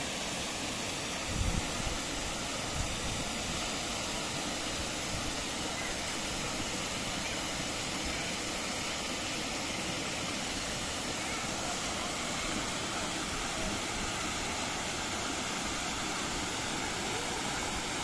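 Steady rush of water tumbling over and between boulders in a rocky stream and small cascade. A couple of brief low thumps come about a second and a half in.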